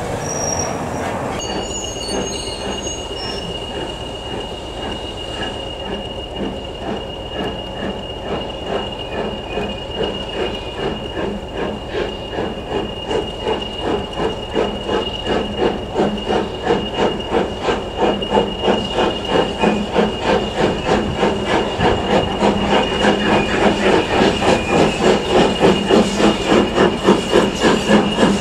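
Midland 4F 0-6-0 steam locomotive working hard as it pulls away up the incline. Its exhaust beats are regular and grow steadily louder as it approaches, reaching a little over two beats a second.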